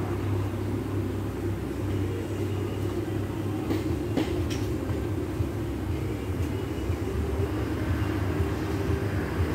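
A steady low machine hum, with a few light clicks about four seconds in.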